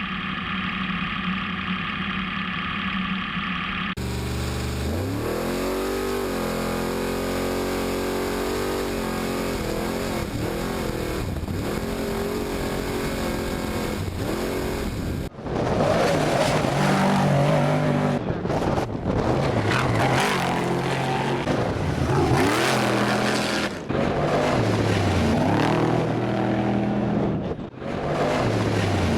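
Trophy truck engine at race pace, its pitch rising and falling as it accelerates and eases off, after a few seconds of a steady hum. About halfway through it turns louder and rougher, with brief drops as the throttle is lifted, about three times.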